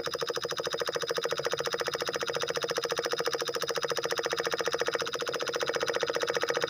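Homemade miniature PVC diesel engine running steadily with a rapid, even chugging rattle, its beat dipping briefly about five seconds in.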